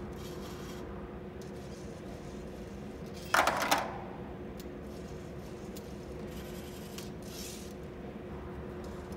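A purple ring released by a VEX robot drops and clatters onto a plastic tray, a short burst of a few quick clacks about a third of the way in, over a steady low hum.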